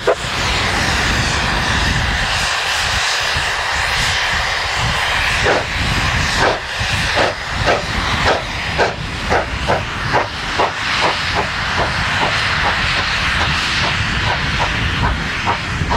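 Steam locomotive, a narrow-gauge K-36 2-8-2, starting off: a steady steam hiss for the first few seconds, then exhaust chuffs beginning about five seconds in and quickening as it gets under way.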